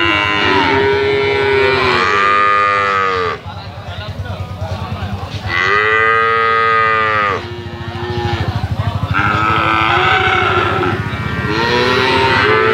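Calves mooing: about four long, drawn-out calls in turn, some overlapping, each rising and then falling in pitch.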